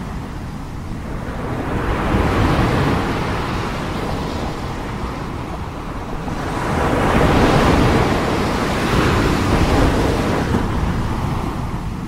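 Ocean surf breaking and washing up a beach in a steady rushing wash. It swells as a wave breaks, loudest from about seven to ten seconds in, then eases.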